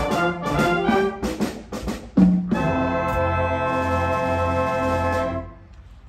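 Concert band with brass and woodwinds playing the closing bars of a piece. A quick passage of notes leads to a short accented low note about two seconds in, then the full band holds a final chord for about three seconds and cuts off near the end.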